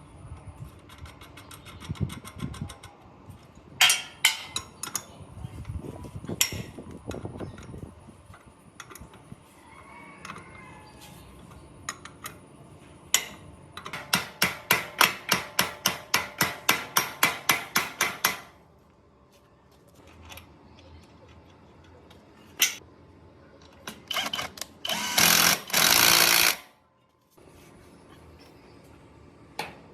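Workshop tool work: scattered knocks and clanks, then a run of about fifteen quick, evenly spaced strikes lasting about four seconds. Later comes a loud rushing burst of about two seconds.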